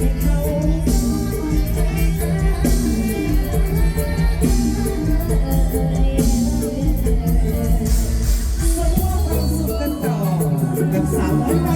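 Music with singing over a steady beat and heavy bass.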